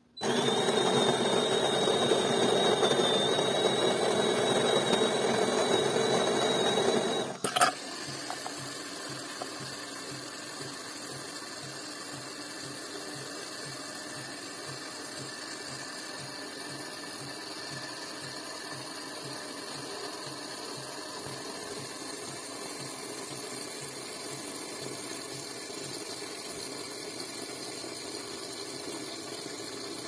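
De'Longhi Dinamica ECAM 350.55.B's built-in conical burr grinder grinding beans loudly with a steady high whine for about seven seconds, stopping with a click. Then the machine's quieter steady hum with a regular low pulsing as the LatteCrema system froths and dispenses milk into the glass.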